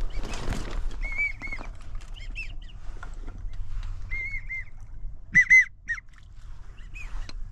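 American wigeon whistling: short rising-and-falling whistled notes in twos and threes, the loudest pair about five and a half seconds in.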